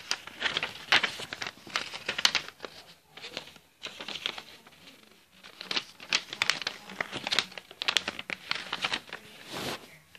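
A sheet of paper rustling and crinkling in quick, irregular crackles as it is folded and creased by hand. The rustling stops near the end.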